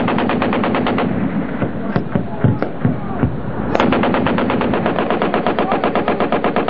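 Machine gun firing long strings of rapid shots. About two seconds in it breaks off and only a few scattered single shots are heard, then it opens up again at the same steady rapid rate.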